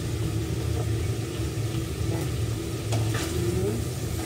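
Food sizzling as it fries in a wok, over a steady low hum, with a faint click about three seconds in.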